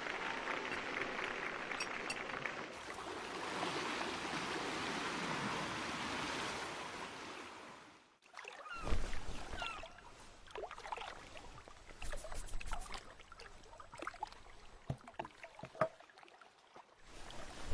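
Sea water washing and lapping, a steady watery noise that fades out about eight seconds in. Then faint creaks, rustles and small knocks, with a low thud just after the fade, as the old man stirs in bed.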